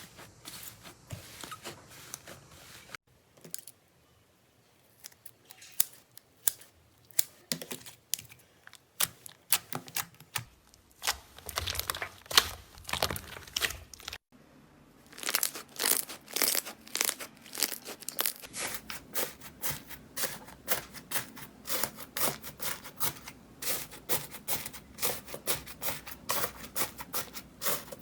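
Slime being squeezed and stretched by hand, making dense runs of crisp crackles, clicks and small pops. It breaks off briefly twice, about three seconds in and again about fourteen seconds in.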